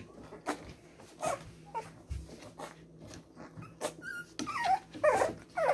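One-month-old Cavalier King Charles spaniel puppies whimpering, with a few short high squeals near the end, over scattered light scratches and knocks as they move about the floor and the wooden box.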